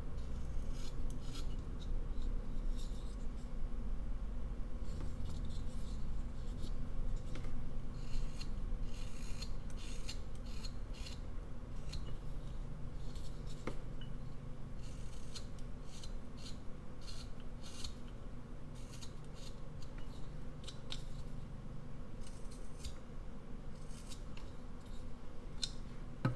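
Whittling knife slicing thin shavings off a basswood block: a run of short scraping cuts at an irregular pace, over a low steady hum.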